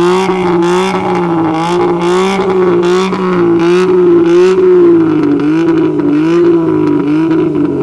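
Daewoo Tico's three-cylinder engine held at high revs through its tuned exhaust, with the pitch wavering up and down about twice a second as the throttle is worked.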